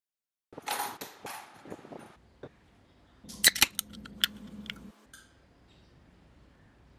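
Aluminium drink-can pull tab being bent back and forth and snapped off, a run of sharp metallic clicks with the loudest near the middle. Before it, a hissing burst of about a second and a half.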